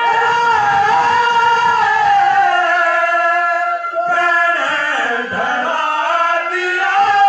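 Haryanvi ragni folk music: several men singing together in long held lines over instrumental accompaniment, with a few drum strokes in the second half.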